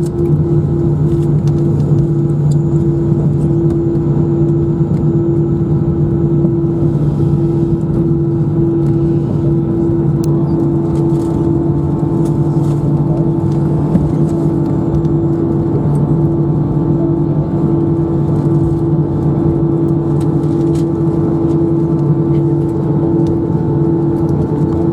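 Airbus A319 jet engines running steadily, heard inside the cabin: a constant drone with two steady humming tones and a rush of noise beneath.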